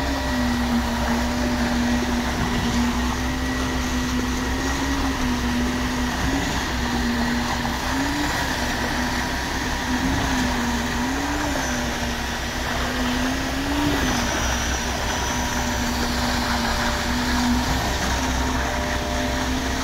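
Diesel engines of a truck-mounted concrete boom pump and its feeding mixer truck running steadily under load while concrete is pumped, with a low rumble and an engine note that now and then rises and dips.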